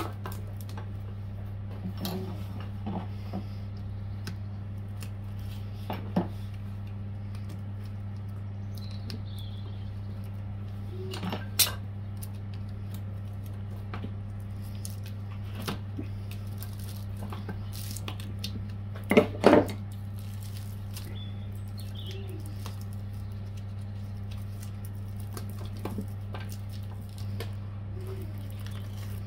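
Metal pieces clinking and knocking against each other now and then over a steady low hum, the loudest a quick cluster of knocks about two-thirds of the way through.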